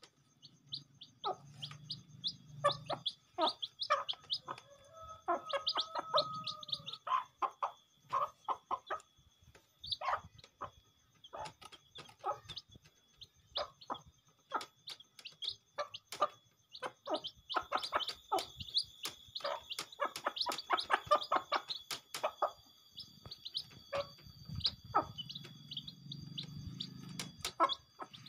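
Kampung chicks peeping constantly while a hen clucks softly, with frequent sharp taps of beaks pecking rice grains off the ground.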